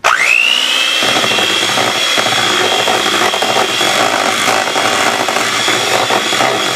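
Electric hand mixer switched on and running steadily, its beaters whipping butter and strawberry purée in a metal bowl. The motor's whine rises as it spins up, then holds steady.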